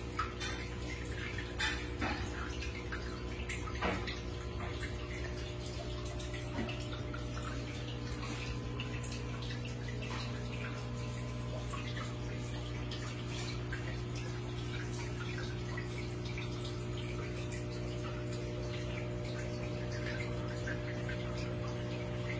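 Water dripping and trickling in an aquarium, with the drips most frequent in the first few seconds, over a steady low hum.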